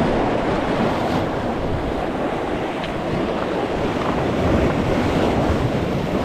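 Waves washing and splashing against jetty rocks, with wind buffeting the microphone.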